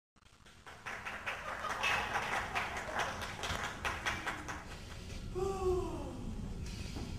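A quick, irregular run of clattering taps and clicks, then near the end a drawn-out vocal cry that falls in pitch.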